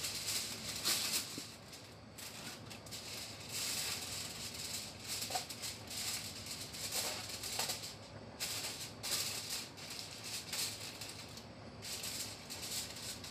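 Aluminium foil crinkling and rustling in irregular bursts as it is pressed and folded over the edges of a tray to cover it.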